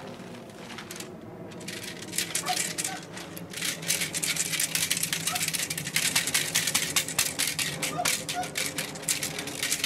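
Blue plastic tarp crackling and rustling as it is crumpled and shaken, a dense run of crinkles that grows louder about two seconds in.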